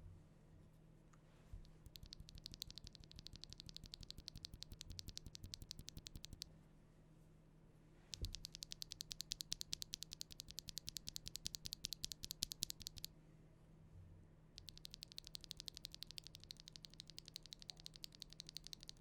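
Rapid typing on a mechanical keyboard fitted with Akko CS Silver linear switches: three runs of quick keystrokes with short pauses between, as a switch sound test.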